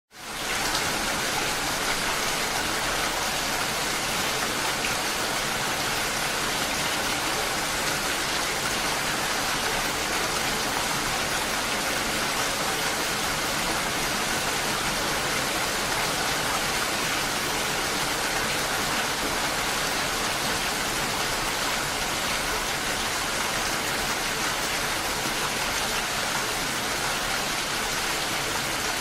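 Steady rain, an even hiss that fades in at the very start and then holds level throughout.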